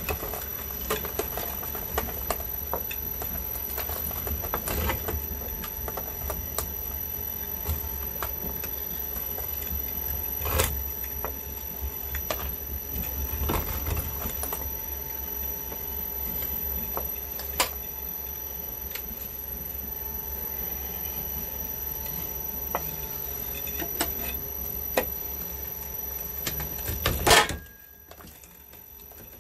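Small twin-shaft shredder running with a brick on its hooked cutter discs: a steady motor hum with fast rattling, and occasional sharp knocks as the teeth catch the brick. Near the end comes one loud crack, then the running sound falls away.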